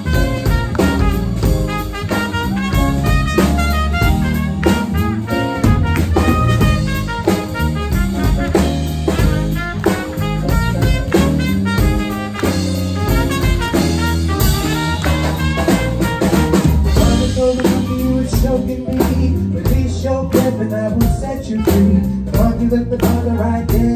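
Live jazz band playing a swing number, with the drum kit keeping the beat.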